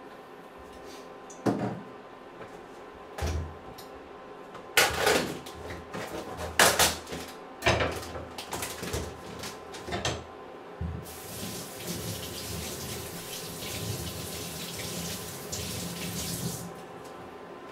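Off-camera kitchen knocks and clatters, then water running for about six seconds that stops abruptly near the end.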